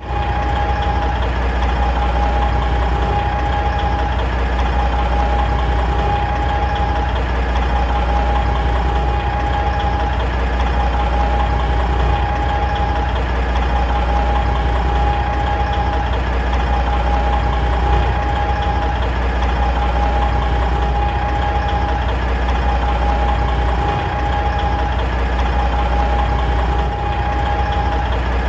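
Big truck diesel engine idling steadily, a low even rumble with a steady higher tone running through it.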